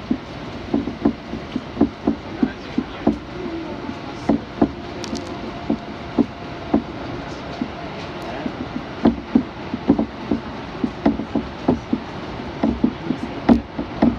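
Kintetsu electric train running at speed, heard from inside the car: a steady rumble broken by irregular wheel clacks over rail joints and points, several a second, as it runs through a station.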